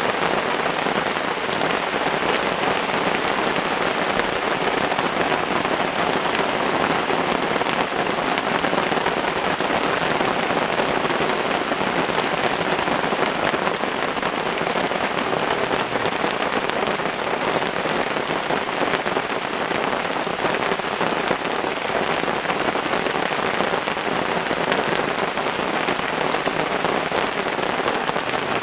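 Rain falling steadily in a sudden summer downpour, an even hiss of drops that keeps up without a break.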